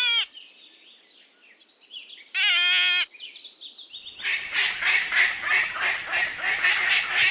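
Rabbit calls: two short, high, wavering squeals about two and a half seconds apart. From about four seconds in, a rapid scratchy chirring follows, with a thin high whistle over it.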